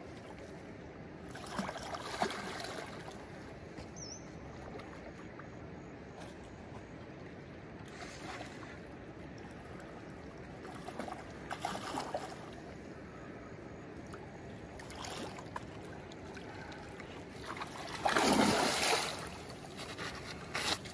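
Steady rush of river water, broken by several splashes from a hooked wolf barb thrashing at the surface, the loudest near the end.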